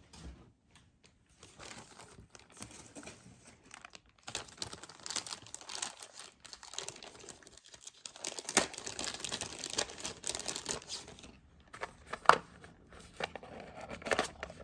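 Packaging crinkling and rustling as hands rummage for the next piece, from about four seconds in until about eleven seconds. Then a few sharp taps and clicks as a small cardboard jewelry box is handled.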